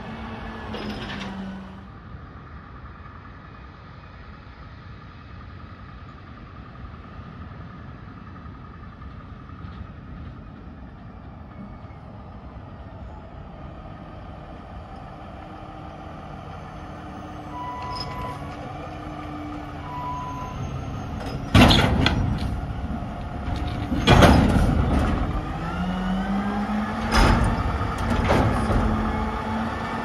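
Front-load garbage truck's diesel engine running as it drives up. About two-thirds of the way in come three loud metal clanks as its forks engage and work a steel dumpster. Near the end the engine revs up to drive the hydraulics lifting the container overhead.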